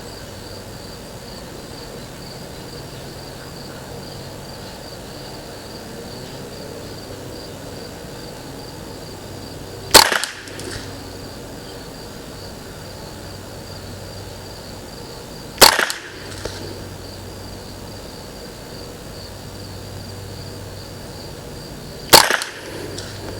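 Three single shots from a Ruger 10/22 Target semi-automatic rifle firing CCI Standard Velocity .22 LR, about six seconds apart, each a sharp crack with a short echo.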